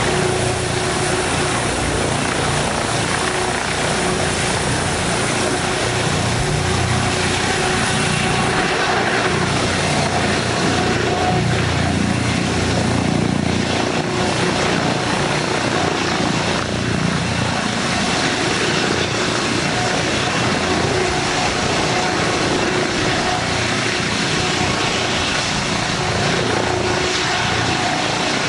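Boeing-Sikorsky RAH-66 Comanche helicopter hovering low: a steady, loud rotor wash and turbine noise with a faint constant hum running through it.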